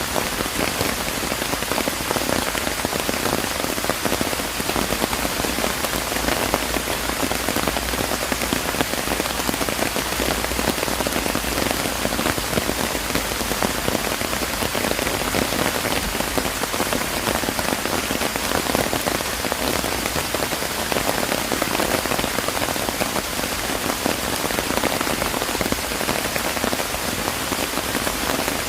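Steady rain falling, a dense, even patter of drops that keeps up without let-up.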